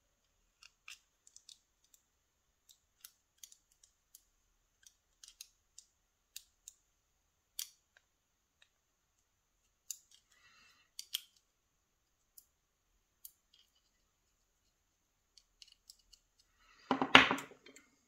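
Small, sparse metal clicks and light scrapes as a thin steel tool works inside the disassembled core of a Mottura pump-lock cylinder to free its slider packet. A louder clatter of metal parts comes near the end.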